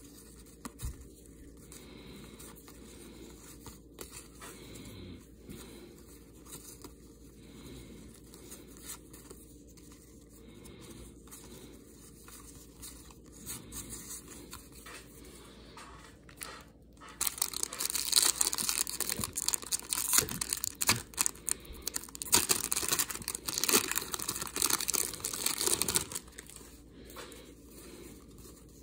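Thin cardboard trading cards handled and flipped through by hand: faint soft flicks for the first half, then a louder stretch of rough rustling and scraping, cards sliding against one another, for about nine seconds before it settles back to faint flicks.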